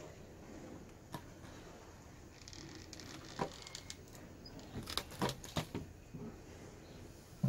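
Light handling sounds: a few scattered clicks and taps, with a quick cluster of them about five seconds in, over a faint rustle.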